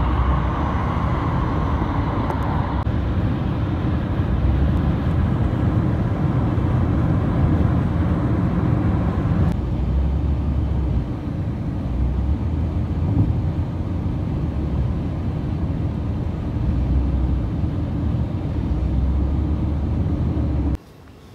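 Steady rumble of road, tyre and engine noise heard from inside a vehicle travelling at highway speed. The sound changes abruptly about 3 and 10 seconds in, and drops away sharply just before the end.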